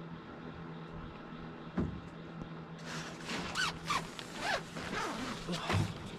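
A zipper pulled in a run of quick rasping strokes from about three seconds in, after a single knock, over a steady low hum.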